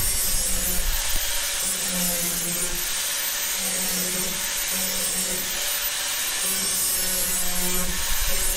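Small electric angle grinder cutting through the plastic hood of a ride-on mower, the disc hissing steadily against the material while the motor's note wavers and dips as the disc bites.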